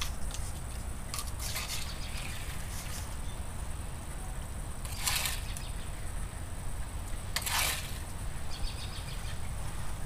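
A child's plastic shovel scooping and scraping water in a shallow puddle: a few short wet swishes, the loudest about five and seven and a half seconds in, over a low steady rumble.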